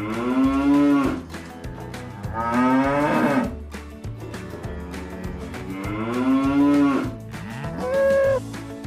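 Cows mooing: three long, drawn-out moos a couple of seconds apart, each rising and then falling in pitch, then a shorter, higher call near the end. Background music plays underneath.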